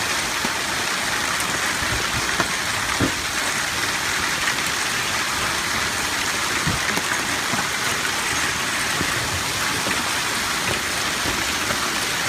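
Heavy storm rain, a dense steady hiss, with a few faint low knocks.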